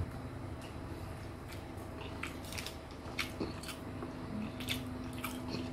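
A person biting into and chewing a mouthful of chicken burger, with irregular small mouth clicks and smacks.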